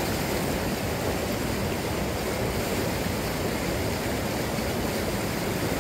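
Steady rush of flowing stream water, an even hiss with no separate splashes.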